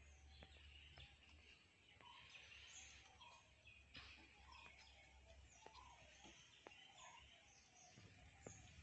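Faint wet clicks and smacks of a puppy licking and chewing food off a board, with birds chirping in the background.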